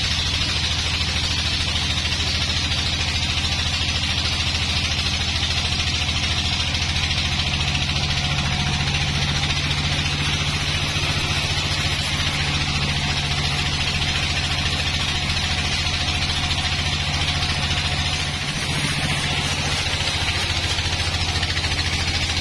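Band sawmill running steadily, its blade cutting lengthwise through a dry, weathered log: a steady low machine hum under the hiss of the cut, dipping briefly near the end.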